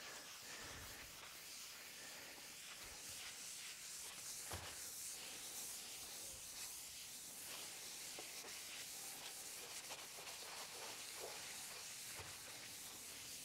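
A cloth pad rubbing clear food-safe oil finish across a spalted wooden breadboard: a faint, steady rubbing swish, with one light tap about a third of the way in.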